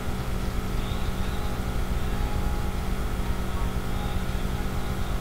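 Steady low droning hum that does not change.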